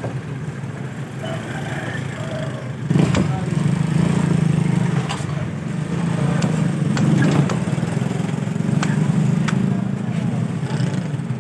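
A motor engine running steadily close by, getting louder about three seconds in, under a busy market din. A handful of sharp knocks come through it, likely the knife blade striking the wooden chopping block as a big mrigal fish is split open.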